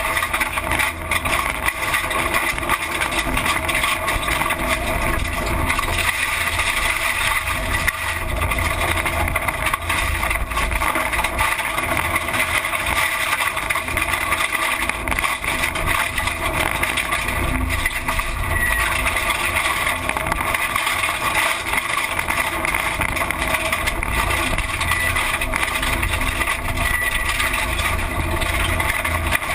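Rally car's engine running at speed, heard from inside the cabin, with steady road and wind noise and no letup.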